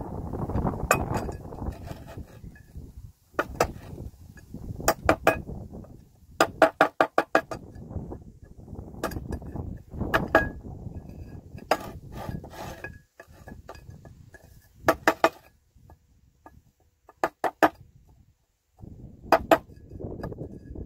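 Rusted metal parts of a submersible well pump being scraped by hand in stretches that start and stop, with clusters of short, ringing metallic clinks between them.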